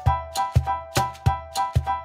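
Background music with a quick, steady beat of pitched notes over a bass.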